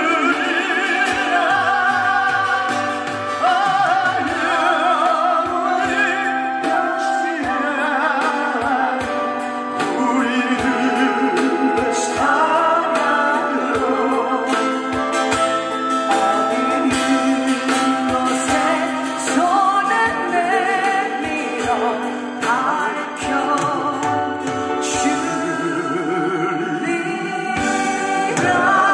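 Amplified singing with heavy vibrato over a backing track with a steady beat: a Korean trot song performed live.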